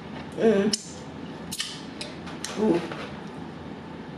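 Close-miked mouth sounds of someone eating and licking her fingers: a few wet, sharp clicks and smacks, a short hum about half a second in, and a brief voiced "ooh" a little past halfway.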